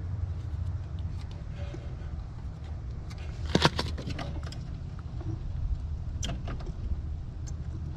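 A few sharp clicks and knocks of parts and tools being handled, the loudest about three and a half seconds in and another about six seconds in, over a steady low rumble.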